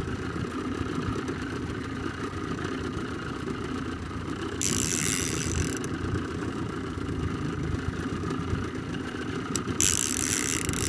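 Boat engine idling steadily, a low rumble, with two short spells of high hissing noise, one around the middle and one near the end.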